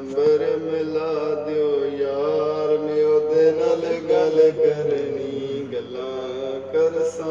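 A man singing into a handheld microphone in long, drawn-out notes that waver slightly in pitch, in a chant-like vocal style.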